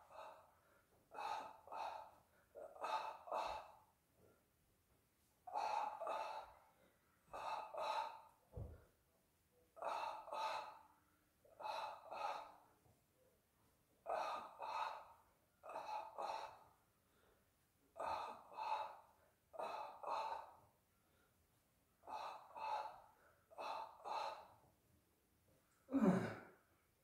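A person making rhythmic breathy gasping sounds with the mouth, in quick groups of two or three about every two seconds, with a louder voiced gasp near the end.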